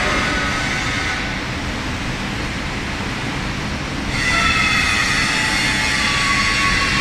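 Overhead travelling crane running with a heavy steel cone on its hook: a steady low rumble with several high, steady whining tones that fade about a second in and return louder about four seconds in.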